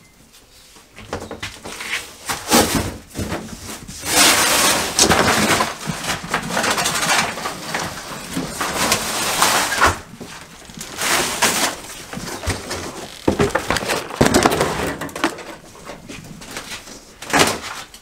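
Wallpaper-faced drywall panels being pulled off wooden studs, breaking and tearing in irregular bursts of crunching and scraping, with paper ripping off a stud near the end.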